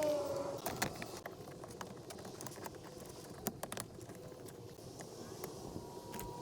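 Scattered light clicks and taps of hand work on a car door, over a faint steady tone.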